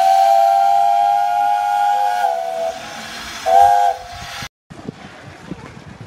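Steam whistle blowing a long, steady blast with a hiss of steam. Its pitch dips slightly near the end of the blast, and a short second blast follows. The sound cuts off suddenly about four and a half seconds in.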